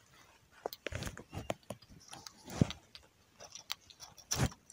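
Scattered small clicks and handling noises of a fishing rod and spinning reel being handled, with two louder knocks, one about two and a half seconds in and one near the end.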